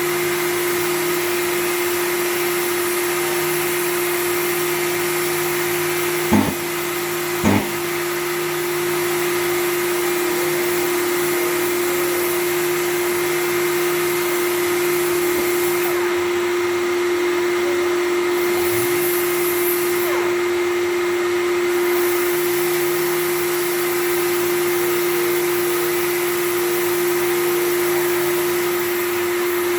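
Power sander running steadily with a constant whine, dry-sanding a car's rear bumper. Two sharp knocks come about six and seven and a half seconds in.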